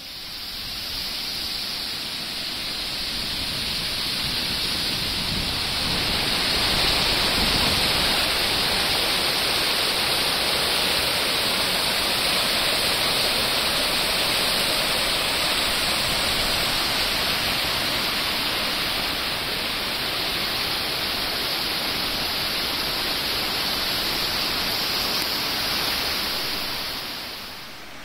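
Water pouring over an erosion-control dam's spillway and splashing onto the rocks below: a steady rush of falling water that fades in over the first few seconds and fades out near the end.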